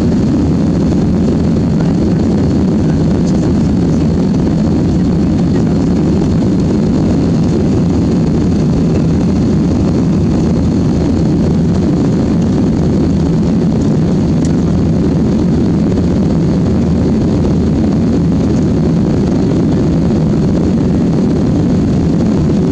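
Steady, deep cabin noise of a jet airliner climbing after takeoff: engine and airflow noise heard from inside the passenger cabin, even throughout.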